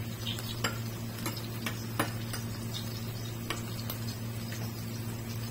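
Minced-chicken patties shallow-frying in a little oil in a nonstick pan: a steady sizzle broken by scattered sharp pops and crackles of spitting oil, over a steady low hum.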